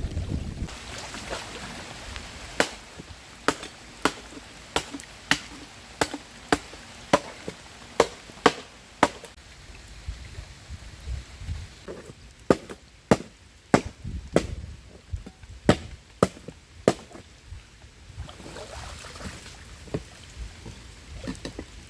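A blade chopping bamboo: sharp strikes about two a second, in two runs with a pause of a few seconds between them.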